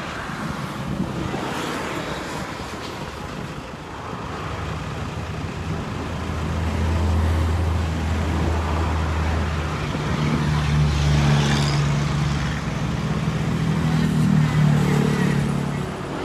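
Road traffic going by, with a motor vehicle's engine running close by; its low hum sets in about a third of the way through and grows louder before dying away near the end.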